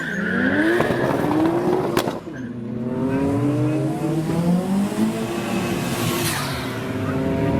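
Toyota Supra's 2JZ inline-six accelerating hard: the revs climb quickly, a sharp crack and drop in pitch come at an upshift about two seconds in, then the revs climb again more slowly through the next gear.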